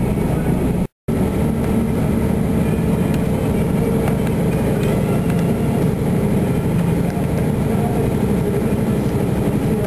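Lorry engine and tyre-on-road noise heard from inside the cab while driving, a steady low drone. The sound cuts out completely for a moment about a second in, then carries on.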